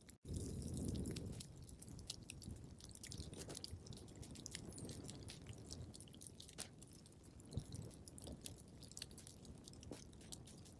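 Wood fire crackling in a fireplace: irregular sharp pops and snaps over a low rumble of flames. The sound cuts out for an instant just after the start, and the rumble is louder for about a second after that.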